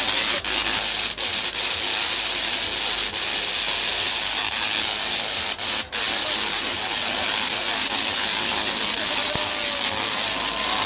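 Large Tesla coils firing high-voltage arcs onto performers in metal suits: a loud, steady hissing crackle of sparks. It cuts out briefly a few times in the first couple of seconds and again about six seconds in.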